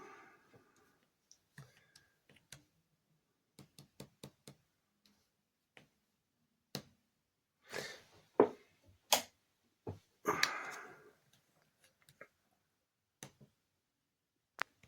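Irregular sharp clicks and taps from handling an instrument cluster on a test bench and pressing its test controls, with two brief rustling noises about eight and ten and a half seconds in.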